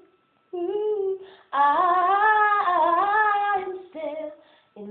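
A woman singing a soul melody unaccompanied. After a brief pause comes a short phrase, then a long, wavering line sung without clear words that fades out, and the next phrase begins right at the end.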